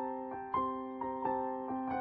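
Background piano music: a slow melody of single struck notes, each ringing and fading, a few notes a second.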